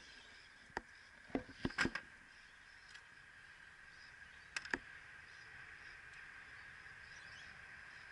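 A few small sharp clicks, in a cluster about a second or two in and a pair near the middle, from hooks, heavy trace line and scissors being handled, over a steady high insect drone.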